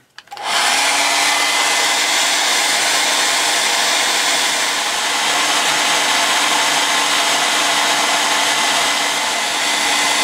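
Handheld hair dryer switched on about half a second in and running steadily, a loud blowing rush with a low hum in it.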